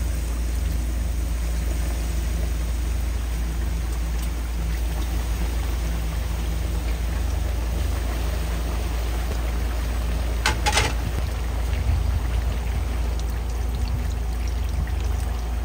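Breaded pork cutlets deep-frying: the oil bubbles and sizzles as a steady hiss over a low hum, with a brief clink about ten and a half seconds in.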